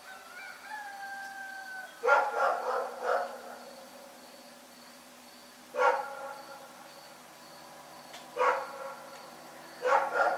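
Dog barking: a drawn-out, slightly falling howl-like whine, then a quick run of about four barks, two single barks a few seconds apart, and another quick run of barks near the end.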